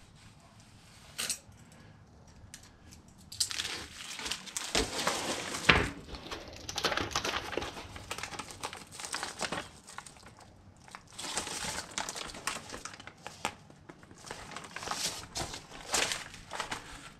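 Crinkling and rustling of sheet material being handled in irregular bursts, with a sharp click about a second in.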